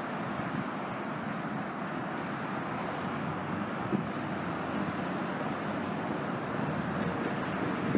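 Steady traffic noise as vehicles drive through and past the lot, including a GO Transit double-decker bus pulling away and an SUV driving by close up. A light tap sounds about four seconds in.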